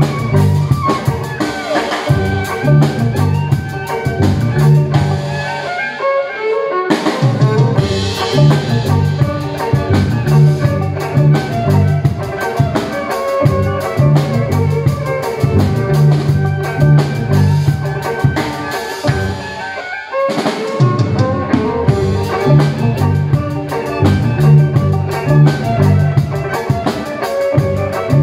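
A violin and a drum kit playing live together, the violin amplified. The low notes drop out briefly twice, about six and about twenty seconds in.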